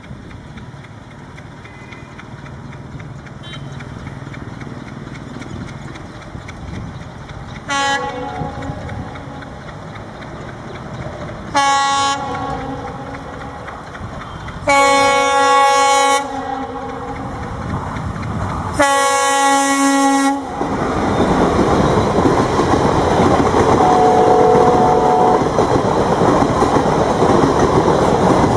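WDG-4 (EMD GT46MAC) diesel locomotive approaching, its rumble growing louder as it sounds its multi-tone horn four times: two short toots, then two longer blasts. It then passes close by with its express train, loud wheel and carriage noise with clickety-clack.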